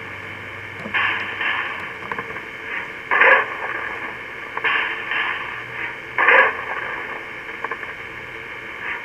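Model Shay steam locomotive running along garden railway track: short hissing bursts about every second and a half over a steady hiss.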